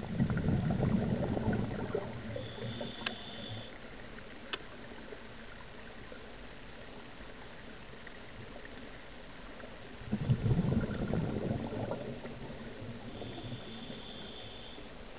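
A scuba diver's breathing heard underwater: a rush of exhaled bubbles from the regulator at the start and again about ten seconds in, each followed by a faint, high, steady hiss of inhalation, over a constant underwater hiss.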